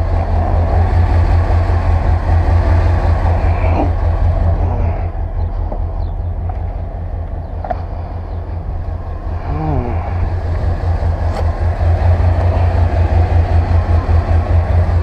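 The 5.7-litre V8 of a 1989 Chevrolet C/K 1500 pickup idling: a steady low, pulsing exhaust note. It dips a little midway and is louder again near the end.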